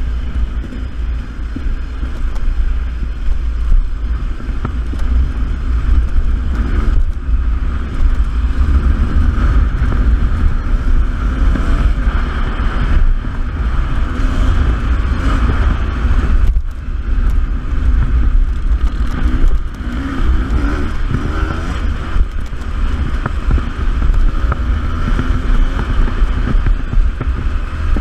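Beta 300RR two-stroke single-cylinder dirt bike engine running under varying throttle on a trail ride, dipping briefly twice, with wind rumbling on the microphone.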